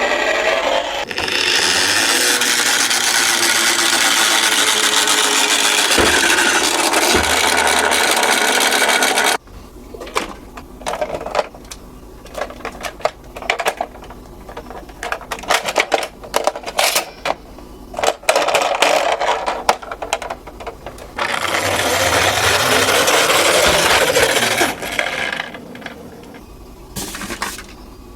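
Toy minicars rolling down a slope track with a steady, loud rolling rattle, once for about eight seconds, stopping abruptly, and again for about four seconds. In between come scattered sharp clicks and clatters of small hard toy parts.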